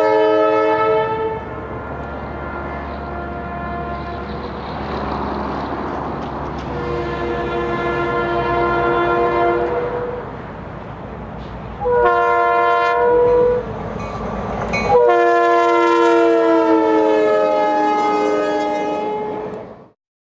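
EMD E9A diesel locomotive's horn sounding the grade-crossing pattern: two long blasts, a short one, then a long blast that sags slightly in pitch as the locomotive passes, over the low rumble of its engines. The end of an earlier horn blast is heard about a second in, and the sound fades out just before the end.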